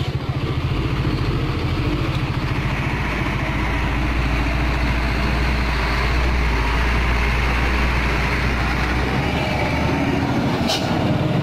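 Hino Ranger FM 260 JD dump truck's six-cylinder diesel engine running at low speed as the truck passes close by, a steady low throb that grows a little louder. A brief high hiss near the end.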